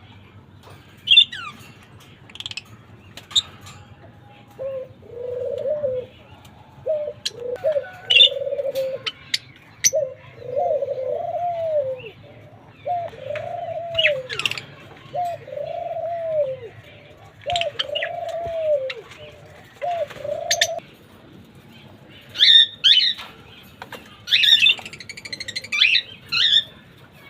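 A dove cooing over and over, a run of about a dozen coos roughly a second each, every one rising and then falling in pitch. Short sharp chirps from small cage birds are scattered throughout, with a busier patch of chirping near the end.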